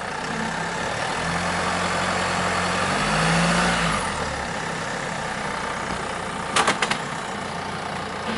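Jeep Wrangler Rubicon JK engine revving under load on a failing hill climb, loudest about three to four seconds in, then dropping back toward idle. About six and a half seconds in come three or four sharp knocks in quick succession.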